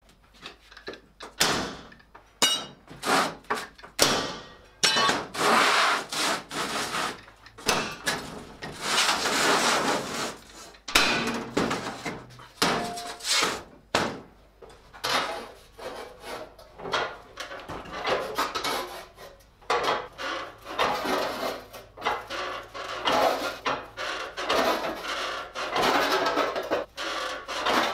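Sheet steel being handled and cut: irregular metal knocks, clanks and scraping, with a yellow FDB Maschinen hand-lever shear cutting around a steel disc in a run of short cuts near the end.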